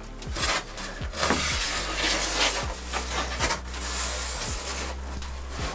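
Insulation board pieces being pushed and rubbed into place on a van floor: scraping and rubbing with several light knocks, over a steady low hum.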